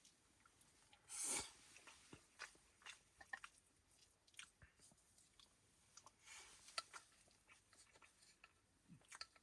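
Faint close-up chewing of a mouthful of rice and stir-fried pork, with small scattered clicks of eating utensils. A short rustling burst comes about a second in.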